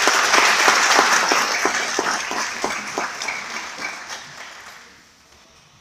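Audience applauding, loudest at the start and dying away over about five seconds.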